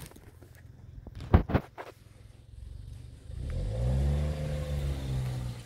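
Honda Hornet motorcycle engine pulling under throttle, its pitch rising and then falling back over about two seconds near the end. A few sharp knocks come about a second and a half in, the loudest of which is the loudest sound here.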